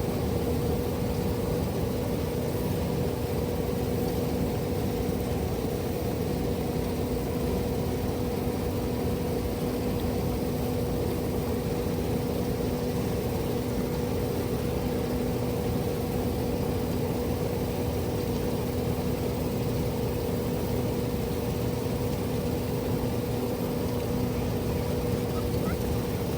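Steady mechanical hum: a constant low tone and its octave over an even rushing noise, with no change in pitch or level.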